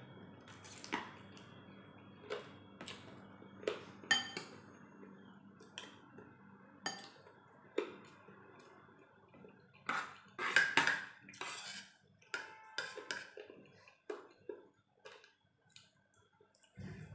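Metal spoon clinking and scraping against a plate and bowl during a meal, in scattered short clinks with a louder, busier cluster about ten to eleven seconds in.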